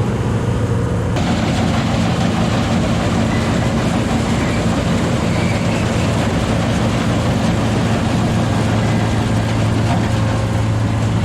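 Sampo plot combine harvester running steadily, its engine holding a constant low note; about a second in, a harsher rushing noise from the machine joins in.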